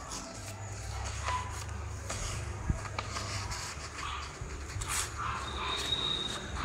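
A sheet of A4 paper being folded in half lengthwise and smoothed down by hand, giving soft rustles and slides of paper over a steady low rumble. A short high note sounds near the end.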